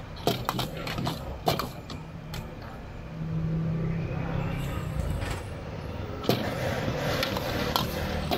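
Busy street ambience: a motor vehicle engine hum swells and passes about midway, over a steady background din with scattered sharp clicks and clatter.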